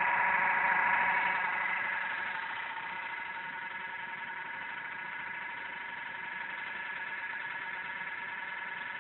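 MacBook Pro's failing left cooling fan running with an abnormal rough, wavering whir over several steady high tones, fading over the first few seconds and then holding steady. The noise is the sign of a fan near death.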